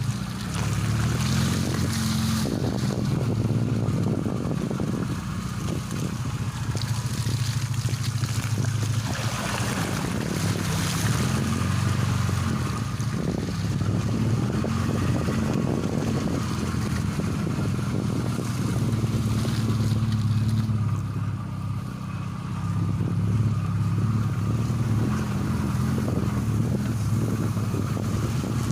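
VAZ-21099 being driven on a road test after a front strut and strut-mount replacement: a steady engine and road drone with tyre noise.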